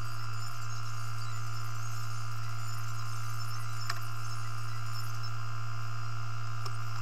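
A steady low hum, with a faint click about four seconds in.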